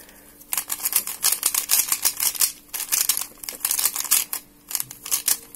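Cheap plastic 3x3 puzzle cube being turned quickly by hand, its layers clicking and clattering in quick runs that start about half a second in, with a couple of short pauses. The cube has almost no corner cutting.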